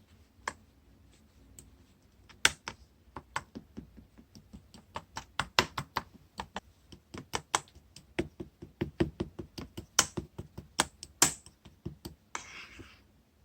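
A run of irregular, sharp taps and clicks, a few a second, getting busier and louder through the middle, followed near the end by a short rustling hiss.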